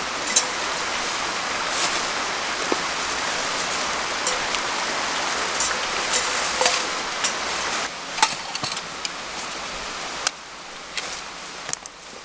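Steady hiss of water, with scattered light ticks and clicks over it; it drops noticeably quieter about ten seconds in.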